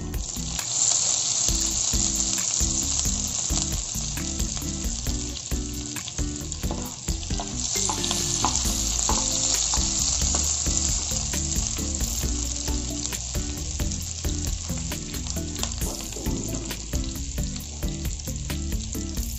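Melting butter and chopped garlic sizzling steadily in a nonstick kadhai over a low flame, stirred now and then with a slotted spatula.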